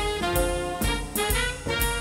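Big band swing music with a brass and saxophone section, played along on a jazz drum kit. The ride cymbal and hi-hat keep time, with regular strokes about twice a second.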